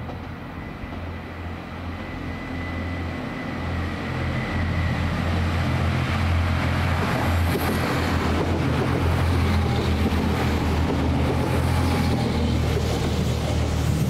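Irish Rail Class 29000 diesel multiple unit running along the platform, its engines and wheels growing louder over the first few seconds and then holding as a steady low rumble. A thin high whine sounds and fades out about five seconds in.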